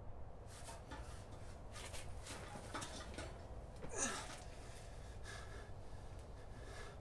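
Faint breathing and rustling from a bound man coming round, with a short falling groan about four seconds in.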